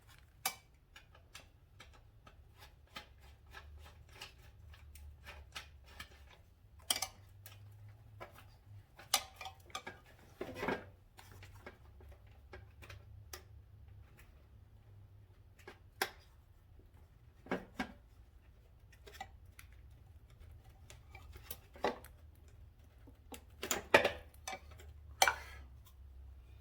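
Scattered, irregular clicks and knocks of hands and tools working loose plastic wiring connectors and hardware on a motorcycle, with a cluster of sharper knocks near the end.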